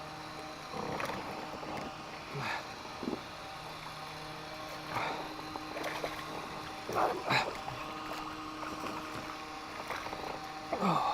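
A steady motor hum from a boat on the water, broken by several short swishing sounds that fall in pitch, the loudest about seven seconds in and near the end.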